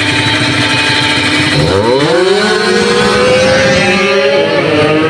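Drag-racing motorcycles held revving at the start line, then launching about a second and a half in: the engine pitch climbs steeply as they accelerate down the strip, holds high, and drops near the end.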